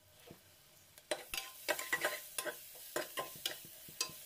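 Spatula stirring and scraping a masala of onions and spices frying in a pressure cooker: a quick, irregular run of knocks and scrapes against the pot starts about a second in, over a faint sizzle of the frying.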